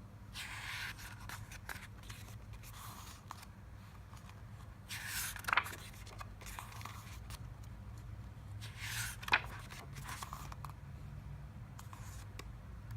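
Paper rustling as the glossy pages of an album photobook are turned by hand. Two louder page turns, about five and nine seconds in, each end in a sharp snap, over a steady low hum.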